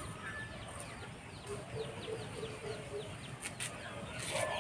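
Chickens clucking, with a run of quick, high, falling chirps about four a second through the first few seconds and a louder call near the end. A couple of sharp clicks come about three and a half seconds in, from the boti blade cutting potato.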